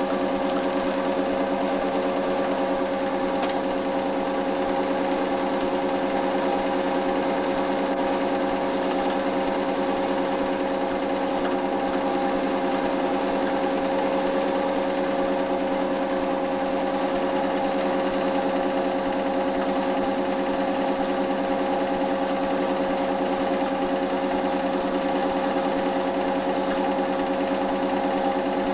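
An 8mm cine film projector running steadily: a constant mechanical whir with a fast, even rhythm and a fixed hum, unchanged throughout.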